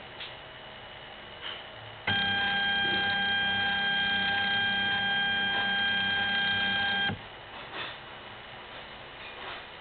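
A steady beep, one unchanging tone held for about five seconds, switching on and off abruptly. Faint scattered clicks come before and after it.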